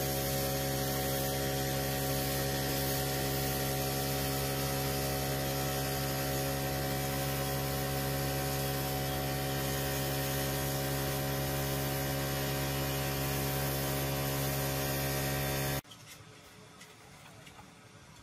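Electric paint sprayer running, spraying paint, with a steady buzzing hum that cuts off suddenly about two seconds before the end.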